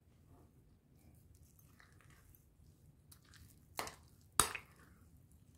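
A hand squishing a wet wheat-flour and jaggery batter in a glass bowl, giving faint soft squelching. About four seconds in come two sharp knocks half a second apart, the second louder.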